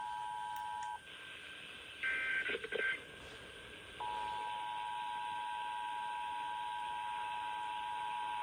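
Emergency Alert System two-tone attention signal (853 and 960 Hz) received over radio. It breaks off about a second in, leaving hiss and a roughly one-second burst of higher, data-like tones, then comes back steadily about four seconds in.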